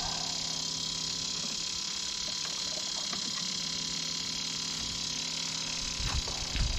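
Old electric fuel pump running steadily as it pumps gasoline out of a scooter's fuel tank: a constant whirring hum with a hiss over it. A couple of low knocks come near the end.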